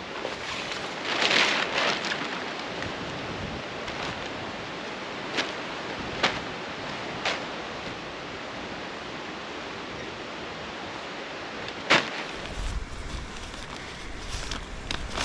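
Steady rain hiss, with a few sharp knocks and a burst of rustling early on. A low rumble comes in near the end.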